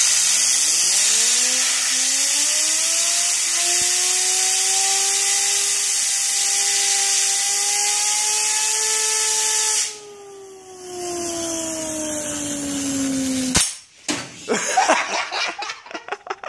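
Hissing blast of compressed air spinning up a fidget spinner, whose whine rises in pitch over the first few seconds and then holds. About ten seconds in the air cuts off, and the whine slowly falls as the spinner coasts down, then stops abruptly.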